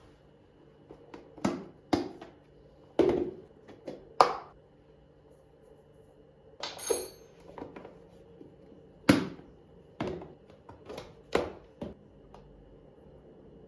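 Irregular clinks and knocks of kitchenware being handled, about ten in all, each with a short ring. One brighter, longer clatter comes about seven seconds in.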